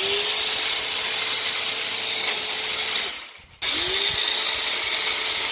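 Parkside PHSL 900 A1 900-watt electric long-reach hedge trimmer running steadily. About three seconds in it is released and winds down, then switched on again half a second later, its pitch rising as the motor spins back up.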